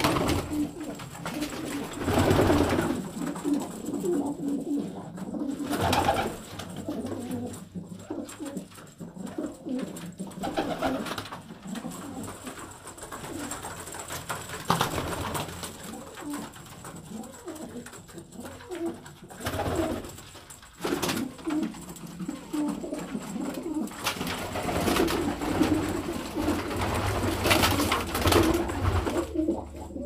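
Domestic pigeons cooing, low calls repeated over and over, with a few brief loud bursts that fit wings flapping.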